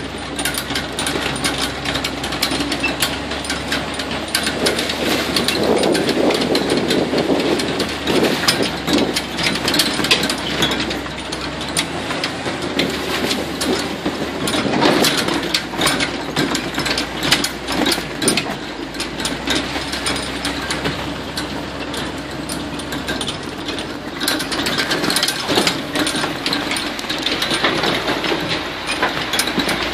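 Swamp buggy running along a rough dirt trail: a steady engine and ride noise with many small knocks and rattles from the open vehicle as it bumps along.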